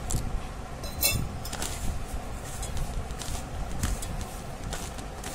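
Water sprinkled into a stainless steel bowl of flour, then a hand rubbing and mixing the damp flour, with a few sharp metallic clinks against the steel bowl, the loudest about a second in.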